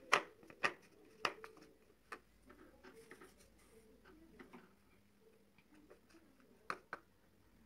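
A metal spoon clinking and scraping against a bowl while stirring flour into water to make a thin batter. A few sharp clinks come in the first second and a half, softer taps in the middle, and two more clinks near the end.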